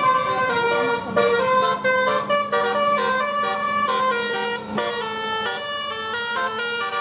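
Bus telolet (basuri) multi-tone horn playing a quick melody, its notes jumping several times a second over a steady low hum.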